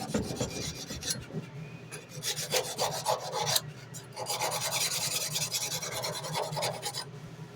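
Sandpaper on a large hard backer block rubbed by hand back and forth along a steel tanto knife blade, a rasping scrape in runs of quick strokes with short breaks about a second in, around three and a half seconds in, and near the end.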